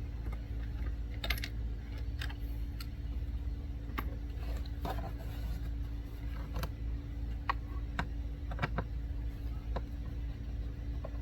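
Scattered light clicks and taps of a hand tool working screws out of a car's plastic interior door panel, about a dozen at uneven spacing. A steady low hum runs beneath.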